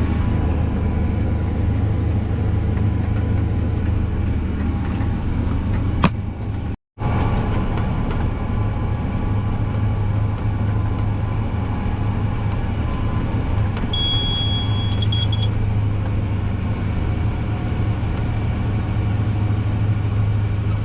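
A 240-horsepower tractor's engine runs steadily under load while pulling a round baler, heard from inside the cab as a heavy, even drone. About fourteen seconds in, a high electronic beep sounds for about a second and a half.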